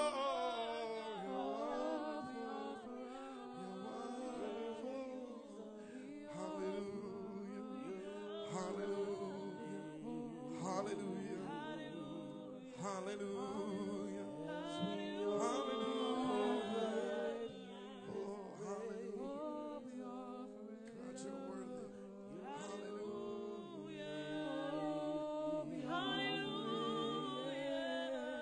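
Gospel praise-team singing: voices at microphones holding long, sliding notes in worship, with no clear words.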